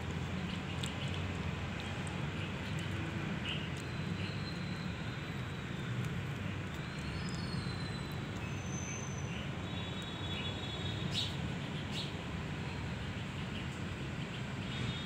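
Steady low background rumble, with a few short, high bird chirps near the middle.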